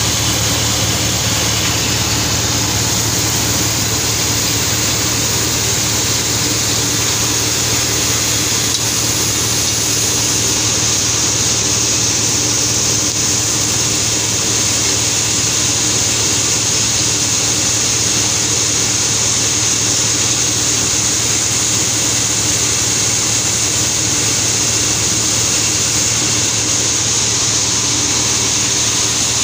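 Sawmill machinery running steadily, an engine-driven saw with a constant low hum under a steady high whine.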